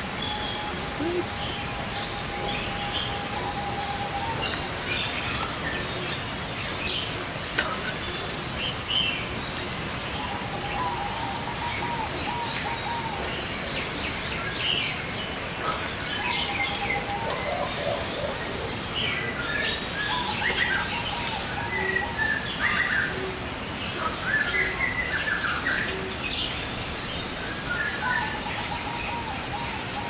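Several birds chirping and whistling with short, scattered calls, while one keeps repeating a lower, even trill lasting a second or more, several times over.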